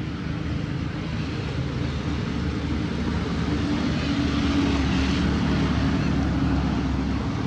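A motor engine running with a steady low drone that grows slowly louder over the first few seconds.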